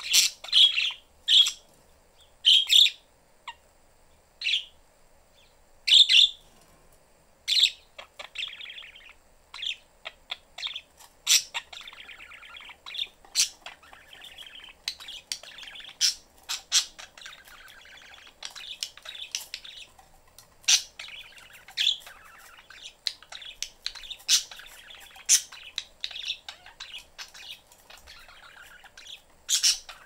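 Pet budgerigars chirping in their cage: sharp, loud chirps in the first several seconds, then a softer, continuous warbling chatter dotted with chirps.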